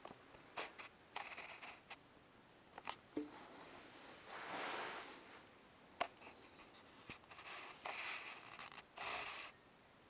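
Blade mCX2 micro coaxial RC helicopter's electric motors spinning its rotors up in short bursts while it sits on the table: a soft airy whirring that comes and goes, the longest bursts near the middle and toward the end, with scattered sharp clicks in between.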